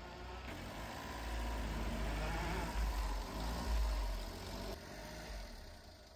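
Motor vehicle engine running, a low rumble that swells about a second in, peaks around three to four seconds in, and fades near the end.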